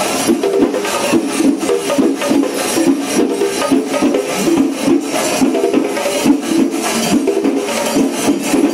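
Traditional Kerala temple percussion ensemble playing: dense, continuous drumming with sharp stick strokes and clashing hand cymbals, at a steady loud level.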